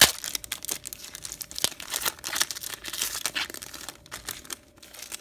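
Baseball card pack wrapper crinkling and tearing as it is opened by hand, a dense crackle with a sharp crack at the start, dying away about four and a half seconds in.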